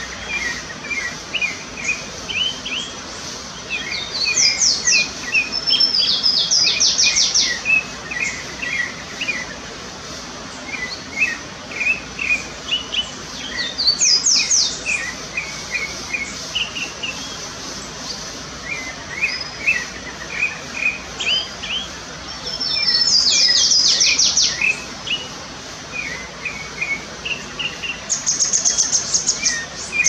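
Pale-breasted thrush singing: a long series of short, varied notes in phrases, broken every several seconds by bursts of rapid high sweeping notes, which are the loudest parts.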